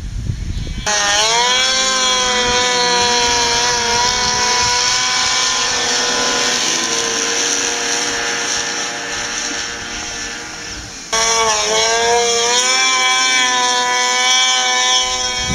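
Two-stroke mountain snowmobiles running at high revs on a hill climb, the engine pitch wavering up and down under throttle. The sound changes abruptly about a second in and again at about eleven seconds, each time to another sled's engine.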